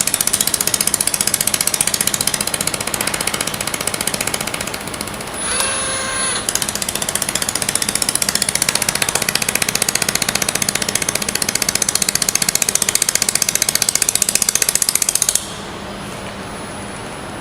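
Robotic pulsed laser welder working a stainless steel water tap: a rapid, even train of sharp laser-pulse ticks, many a second. It breaks off briefly about six seconds in, when a short pitched tone sounds. The pulsing stops abruptly near the end, leaving a steady machine hum.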